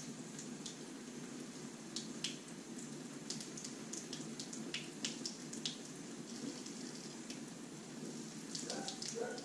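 A Dovo Best Quality 6/8 straight razor scraping stubble off a lathered neck in short, crackly strokes over a steady low hiss.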